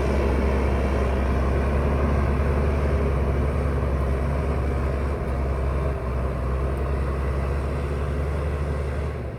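JCB 3DX backhoe loader's diesel engine running steadily, with a strong low hum.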